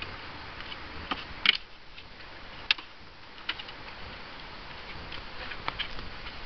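A dog's claws clicking on painted wooden stairs and deck boards as it climbs and walks: scattered, irregular sharp ticks, the loudest about a second and a half in and again near three seconds.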